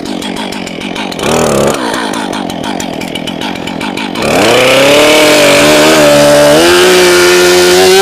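Stihl MS 441 two-stroke chainsaw idling, blipped briefly about a second in, then opened up to full throttle about four seconds in and held at high revs, the pitch easing slightly near the end as the chain goes into the wood. The chain is dull enough that the owner calls the saw too dull.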